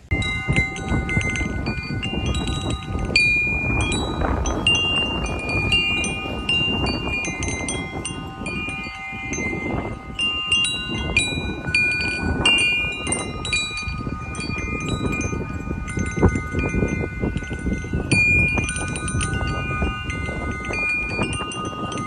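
Chimes ringing in many overlapping, sustained tones of different pitches that strike and fade throughout, over a constant low rushing noise.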